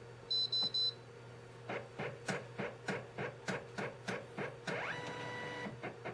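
GC-FLEX thermal label printer beeping three times, then its feed motor advancing the label stock in short jerks about three times a second, with a longer rising whir of continuous feeding a little before the end. This is the printer auto-calibrating, feeding labels to detect the notch, gap or black mark between them.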